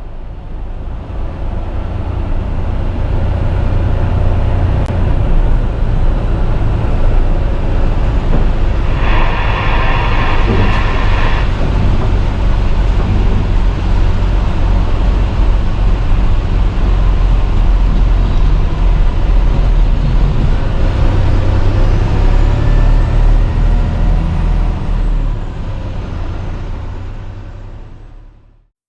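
Tractor-trailer on the road: a steady, heavy low engine and road rumble that fades in at the start and out near the end. About nine seconds in, a brief higher tone with several pitches sounds for about two seconds over it.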